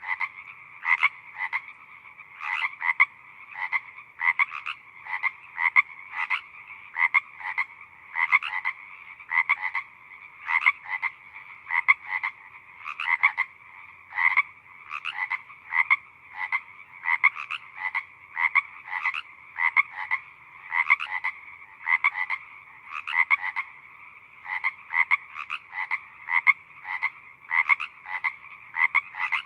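A chorus of frogs calling: sharp croaking calls about twice a second, overlapping one another over a steady background of more frogs.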